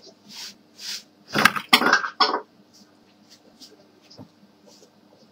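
Hands handling a small replacement chip and parts on a workbench: a few light clicks and soft rustles, then a short loud burst of rustling and clattering about a second and a half in.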